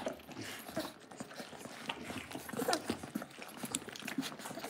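Dalmatian puppies suckling from their mother: a busy patter of wet sucking and smacking clicks, with a few brief squeaks among them.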